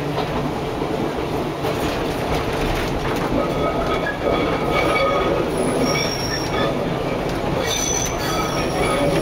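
Historic tram running over its track with a steady rumble of wheels on rail and a few knocks; from about halfway in, the wheels begin a high-pitched squeal as the tram takes a curve.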